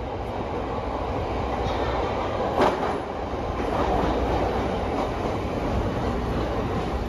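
Chicago CTA subway train pulling into an underground station: a steady rumble of wheels on rails that grows louder as it comes alongside, with one sharp clack about two and a half seconds in.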